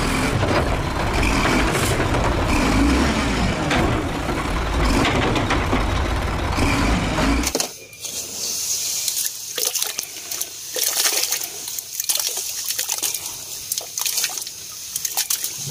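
A real side-loading garbage truck running, a loud steady rumble of engine and machinery that cuts off suddenly about halfway through. Then wet sand and gravel are scooped and scraped by hand out of a toy dump truck's bed, with gritty crunching and splashes into muddy water.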